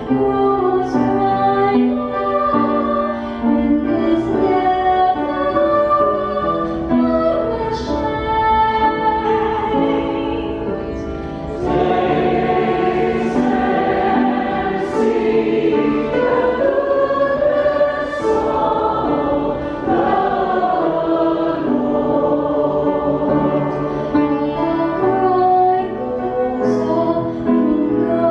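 A woman singing a church worship song through a microphone, with other voices singing along in held, slowly moving notes.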